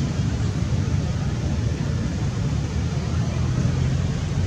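Steady low rumbling background noise with no clear pitch and no distinct events.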